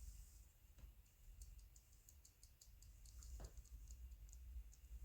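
Near silence with a low rumble and a run of faint, quick high clicks, and one short falling sound about three and a half seconds in.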